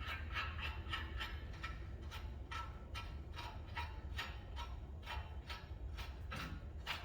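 Hand ratchet clicking in a steady run, about three to four clicks a second, as a lug nut is run down to hold the brake rotor on the hub.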